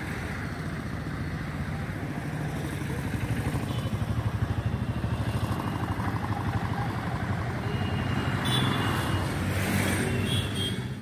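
A motor vehicle's engine running with a steady low hum and a pulsing beat, growing louder from about three seconds in, over street traffic noise.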